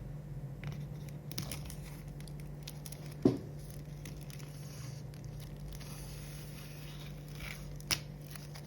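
Wrapping being peeled and torn off an Apple Watch box, crinkling and tearing in short rustles, with one sharp knock about three seconds in and a smaller click near the end.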